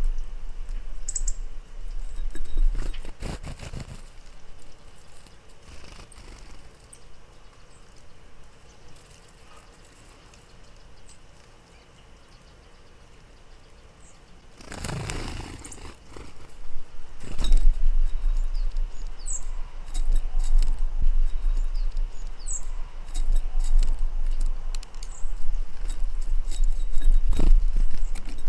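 Gusts of wind rumbling on the microphone, strongest at the start and again in the last ten seconds, with a few brief high chirps from a small bird and some short knocks.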